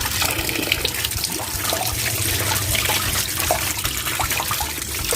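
Tap water running into a sink while pieces of boiled cow-skin rambak are rubbed and scrubbed by hand under the stream, with small splashes and clicks.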